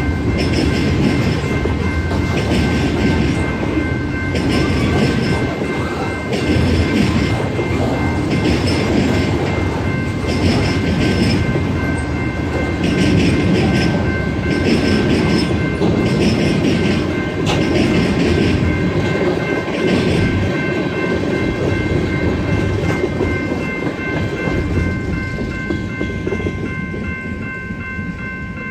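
Loaded covered hopper cars rolling through a grade crossing, a rumble with wheel clatter about every two seconds as each car passes. The rolling noise fades as the last car clears near the end. Meanwhile the crossing's General Signals type-2 electronic bell rings steadily.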